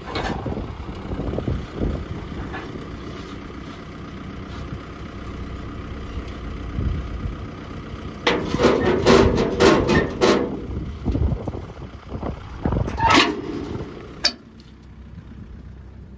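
Heavy diesel engine of a farm machine running steadily, with a run of loud knocks and rattles about halfway through and another shortly after. The sound drops away suddenly near the end.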